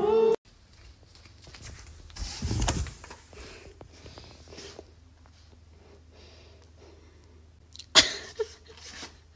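A cat's single short, sharp sneeze, followed by two fainter bursts, near the end; a softer breathy rustle comes earlier.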